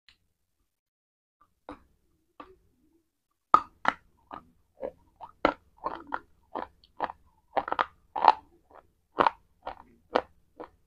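Close-miked crunching as a bite of a white chalk-like bar is chewed: crisp, irregular crunches, a few at first, then two or three a second from about three and a half seconds in.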